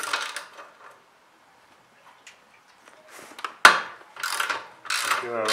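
Metal tool handling at a moped's rear axle nut with a 17 mm wrench: a sharp metallic click about three and a half seconds in, then a few short rattling scrapes.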